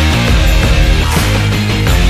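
Loud, energetic background music with a heavy bass line, playing continuously.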